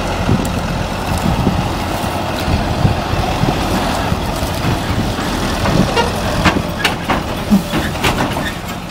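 Heavy diesel farm machinery engine running steadily at corn harvest, with several sharp knocks or rattles over the last few seconds.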